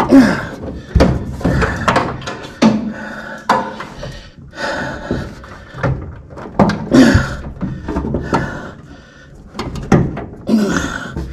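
Irregular knocks, thunks and scraping creaks as a car's heater box assembly is pushed and worked into place under the dash, several creaks falling in pitch.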